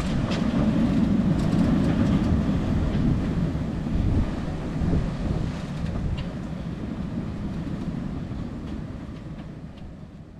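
Steady low rumble aboard a sailboat under way at about five knots, fading out near the end.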